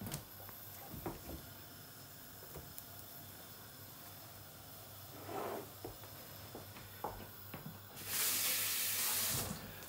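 Light clicks and knocks of a frying pan being handled on a gas hob, then near the end a loud hiss lasting about a second and a half that stops abruptly.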